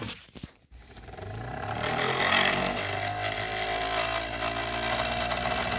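Homemade 3D-printed pulse motor: after a few clicks its rotor spins up on its steel shaft, a hum that rises in pitch and grows louder over the first two seconds, then runs steadily.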